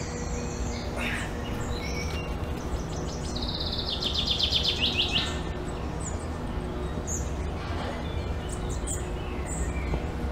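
Birds chirping and calling, with a fast trill of rapidly repeated notes lasting about two seconds a few seconds in, over a low steady rumble.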